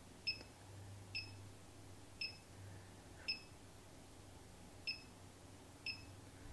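Short electronic beeps from the Optimum G2.1 blender's control panel as the sorbet preset is selected, seven of them at uneven intervals of about a second, over a faint low hum. The motor is not yet running.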